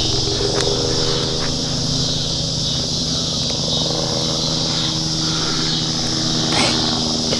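Helicopter flying over, a steady low engine-and-rotor drone of several held pitched tones. Underneath runs a constant high buzz of insects.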